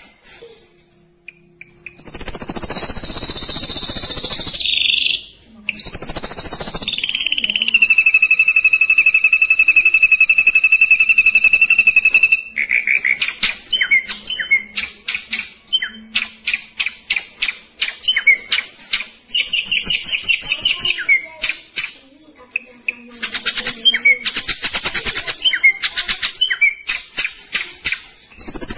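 Ashy drongo singing in long, fast trills held on one pitch, which step down in pitch a few seconds in, then break into a rapid string of quick separate notes for the second half. It begins after a short silent pause.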